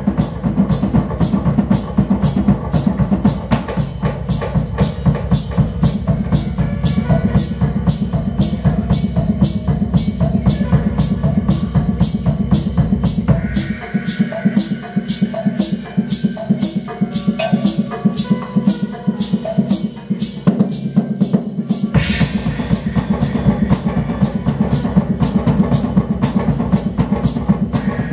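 Live music with a fast, steady drum beat. About halfway through, the bass drops out for roughly eight seconds, then comes back in with a sudden burst of noise.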